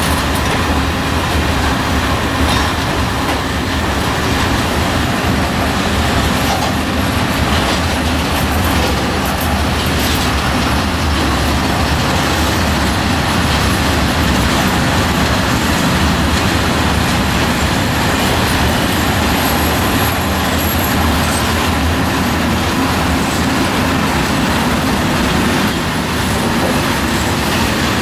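Long freight train of covered hopper wagons rolling past close by: a steady, loud rumble and rattle of wagon wheels on the rails, unbroken throughout.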